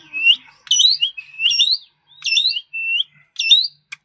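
Plum-headed parakeet calling in a fast series of short, rising whistled notes, repeated about every three-quarters of a second.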